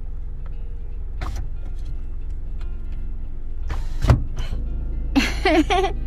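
Steady low hum of a car idling, heard inside the cabin, with rustling against the partly open side window and a sharp thump about four seconds in as a macaque grabs a banana through the gap. Near the end comes a short high-pitched cry that rises and falls in pitch.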